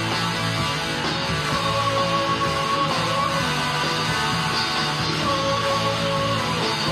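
Instrumental rock music: an electric guitar plays a melody of long held notes over a steady low backing.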